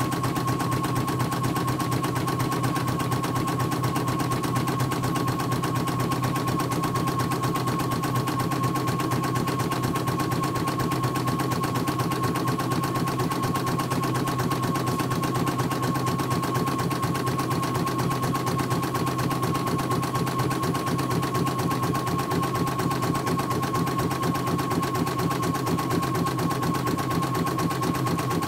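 CNY portable embroidery machine stitching at speed: a fast, even clatter of needle strokes over a steady whine.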